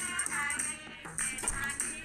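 Background music: a song with a melody that bends in pitch over a steady high shimmering percussion.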